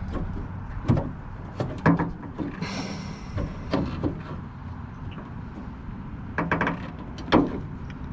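Hands working inside a 1990s Toyota Tacoma door: scattered clicks and knocks of the handle's plastic clips and metal linkage, with a quick cluster of clicks near the end. There is a short scrape about three seconds in.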